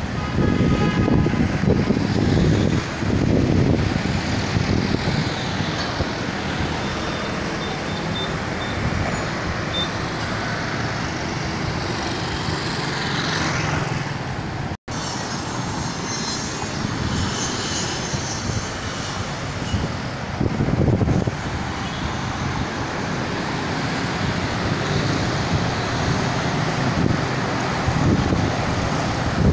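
Street traffic: cars and vans passing close by, engine and tyre noise swelling and fading over a steady city din. There is a momentary dropout about halfway through.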